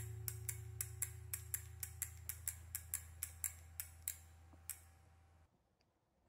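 Mechanical ticking, about four ticks a second, slowing and fading until it stops near the end. Under it a low steady hum cuts off about five and a half seconds in.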